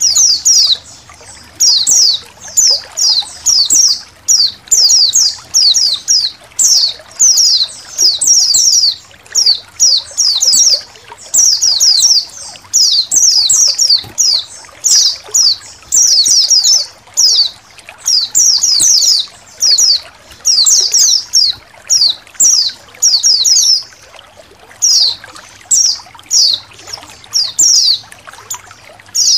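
A colony of white-eyes (pleci) chirping almost without pause: clusters of short, high, falling notes in quick succession, over water trickling.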